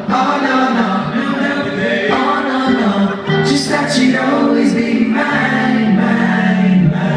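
A male vocal group singing live in harmony, several voices holding long notes that change pitch every second or so.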